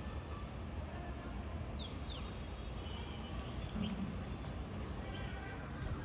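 A few faint, short chirps from a budgerigar: two quick downward-sliding high notes about two seconds in and another near four seconds, over a steady background hiss.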